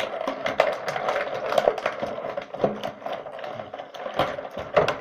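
Rapid clicking and rattling of plastic toy packaging being handled as an action figure is worked free of its box, over a steady hum.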